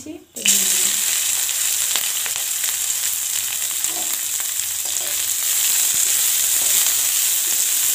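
Chopped green capsicum hitting hot oil in a metal kadai, sizzling loudly with a sudden start about half a second in, then a steady frying hiss. A metal spatula stirs the pieces near the end.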